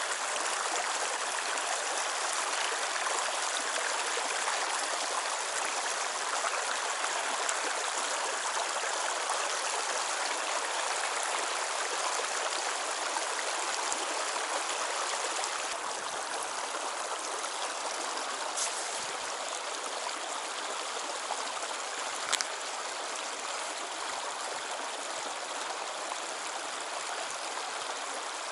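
Shallow, stony river running over rocks: a steady rush of flowing water, a little quieter from about halfway through. One short click about three-quarters of the way in.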